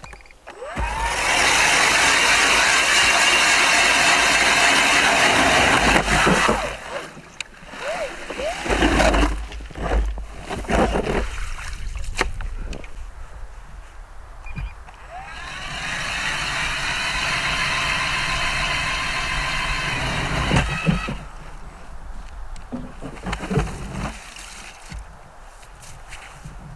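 Ice auger drilling through lake ice: a loud, steady grinding that lasts about six seconds and stops. A fainter second bout of drilling starts about fifteen seconds in and lasts about five seconds. Between the bouts there are scattered crunching steps in snow.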